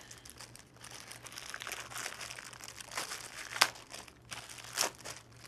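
Clear plastic packaging bag being pulled open and handled, crinkling throughout, with a few sharper crackles, the loudest a little past the middle.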